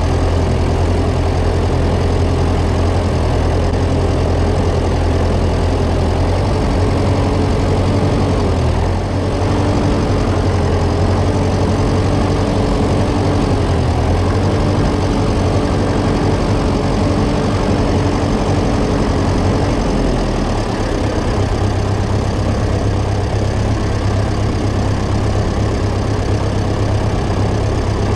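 Tractor engine running steadily, its low hum changing about twenty seconds in.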